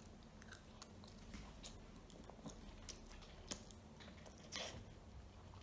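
Faint mouth sounds of a child eating instant ramen noodles with sausage pieces: soft, irregular wet clicks of chewing and sucking in noodles, with one longer, louder noise about four and a half seconds in.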